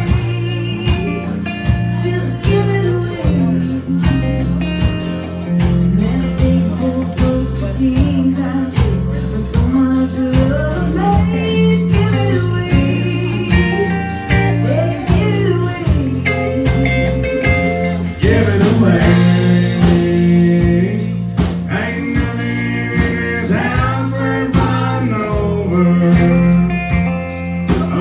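Live country band: a woman singing a ballad into a microphone, backed by acoustic and electric guitar over a steady beat.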